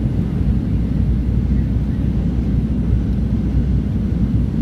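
Steady, low cabin roar of a Boeing 737-700 in flight on its descent to land: the CFM56 turbofan engines and the rush of air along the fuselage, heard from inside the passenger cabin.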